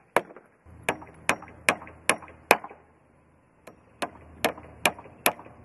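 Claw hammer driving nails through a joist connector into a timber joist: sharp, ringing strikes about two and a half a second, in two runs of six with a short pause about three seconds in.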